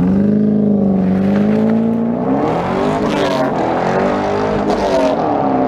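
Car engine revving: the pitch jumps up at the start, holds high for about two seconds, then rises and falls.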